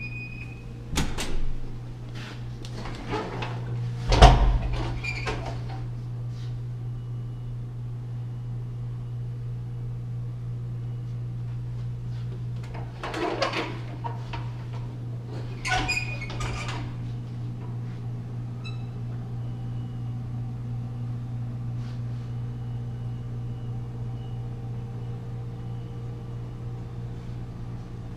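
Closet doors being handled: a few knocks about a second in, a heavier thump about four seconds in, and more clatter in the middle, over a steady low hum.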